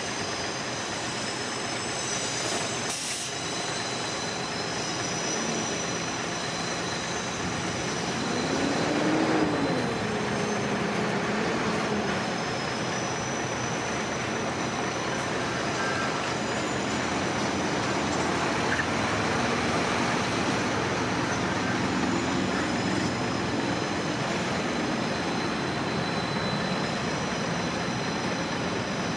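Freight train wagons rolling past on the track: a steady rumble with thin, high-pitched wheel squeals coming and going. A lower tone rises and falls about nine to twelve seconds in, where the sound is loudest.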